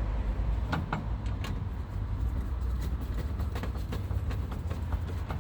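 Light metallic clicks and knocks of hand tools and latch parts being handled inside a car door, scattered irregularly over a steady low rumble.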